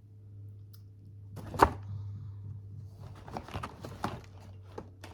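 A single sharp knock about a second and a half in, then a run of small clicks and taps, as of cosmetic containers being handled and set down on a hard surface, over a low steady hum.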